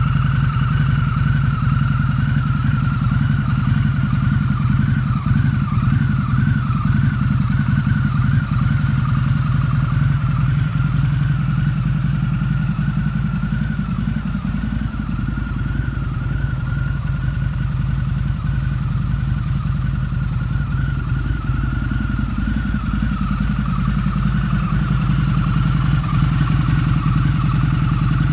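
2014 Harley-Davidson Night Rod Special's liquid-cooled V-twin running at a steady idle through aftermarket Vance & Hines exhausts.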